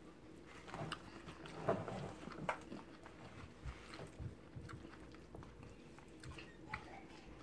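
Faint soft squishing and light scraping as a plastic spatula and hands pat and shape a mound of mayonnaise-bound chicken salad on romaine lettuce leaves, with scattered small clicks.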